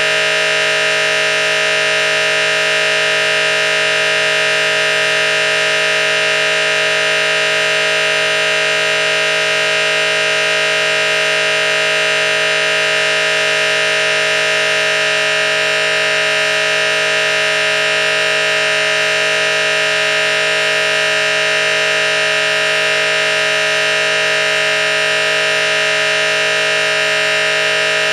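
A loud, steady chord of many tones held without change in pitch or level, siren- or horn-like, with a faint even pulsing in some of the lower tones toward the end.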